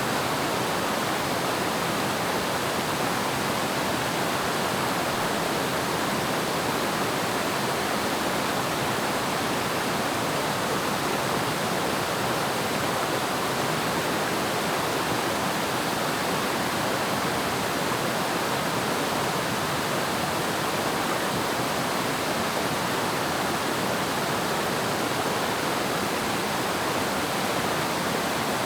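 Waterfall rushing steadily, an even wash of falling water with no breaks or changes.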